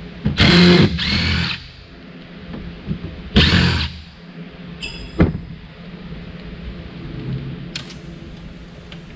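Cordless DeWalt impact driver running in short bursts as it backs screws out of a steel server chassis: two bursts in the first second and a half and a third around three and a half seconds in. A sharp knock a little after five seconds.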